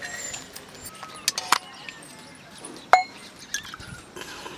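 Metal ladles clinking against an iron kadai: a few sharp clinks with a brief ring, a cluster about a second and a half in and the loudest near three seconds.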